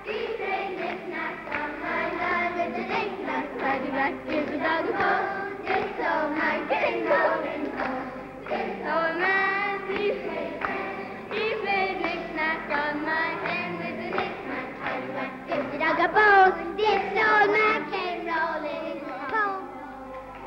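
A group of children singing a song together in chorus, fading out near the end. The sound is from a 1970s one-inch videotape recording.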